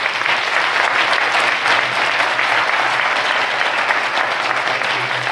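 Audience applauding: a steady round of clapping that breaks out right at the start.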